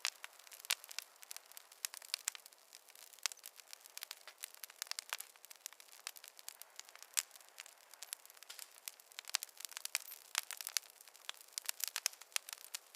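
Wood fire crackling in a fireplace: irregular sharp pops and snaps, several a second, over a faint hiss, with no low rumble.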